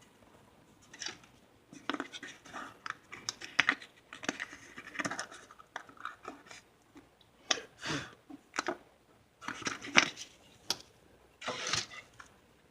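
Irregular clicks, scrapes and rustles of small hand work: the plastic half of a ping pong ball and small speaker parts being handled and trimmed, in short sharp bursts with pauses between.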